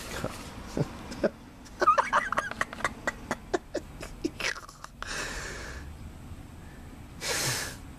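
A man laughing in disbelief: a run of short chuckles about two seconds in, then two breathy exhales.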